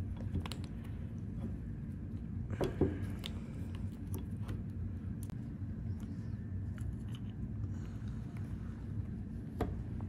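Light clicks and scrapes of a Mercedes W115 manual-transmission shifter's metal and plastic parts being handled and taken apart by hand, with a louder brief sound about three seconds in, over a steady low hum.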